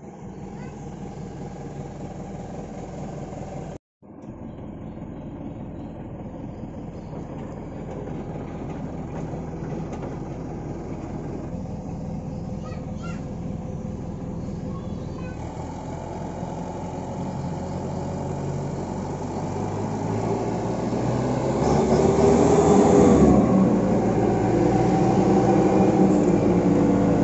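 Dump truck's diesel engine running steadily, growing louder about two-thirds of the way through.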